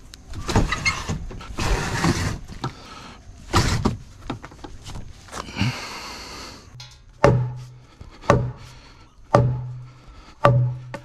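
New 2x6 wooden joists scraping and sliding into place under a house floor, followed by four hard knocks about a second apart as a joist is driven home, each leaving a short low ring in the board.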